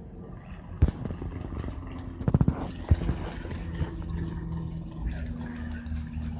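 An engine running steadily with a low hum that grows stronger about five seconds in, with a few sharp clicks and knocks around the first and third seconds.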